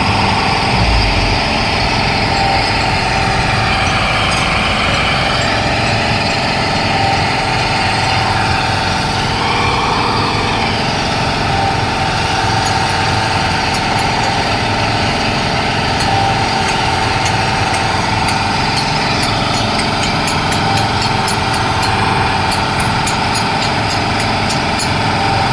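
Concrete mixer running steadily, its motor holding a constant whine over the churning mechanical noise.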